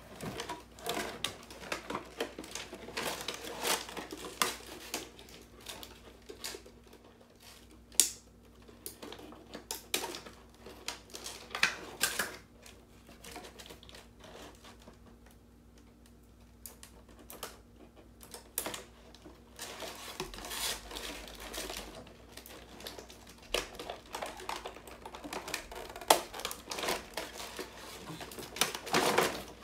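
Cardboard and clear plastic toy packaging being handled: irregular clicks, taps and crinkles as a large plastic toy robot is worked out of its box and tray, with a few sharper knocks and a quieter stretch midway.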